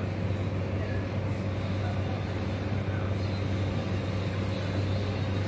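Steady low hum with a constant hiss of background noise, unchanging throughout.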